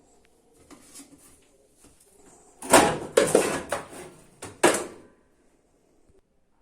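Hard objects clattering and knocking together for about two seconds, with a final sharp knock.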